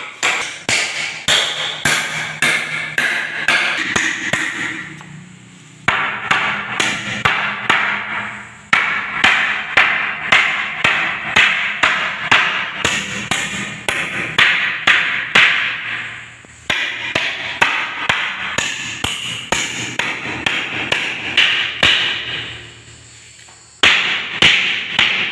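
Hammer driving nails into a wooden batten: runs of sharp blows, about two to three a second, broken by a few short pauses.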